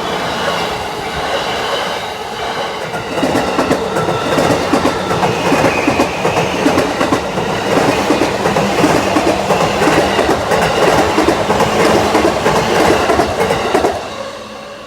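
A JR Yamanote Line train passing over a level crossing, its wheels clattering rapidly over the rail joints. It gets louder about three seconds in and falls away sharply near the end as the train clears.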